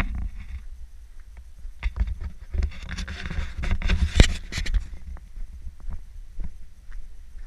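Footsteps crunching on a gravel trail, with an uneven low rumble and scattered knocks from a handheld camera being carried while walking.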